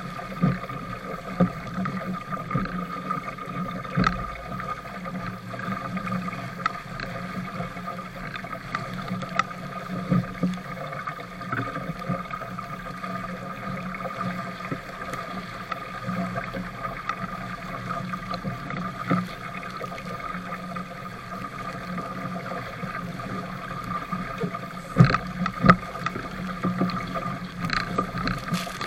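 420 sailing dinghy driving through choppy water: a steady rush of water along the hull with wind, broken by occasional knocks and splashes as waves slap the boat, loudest a few seconds before the end.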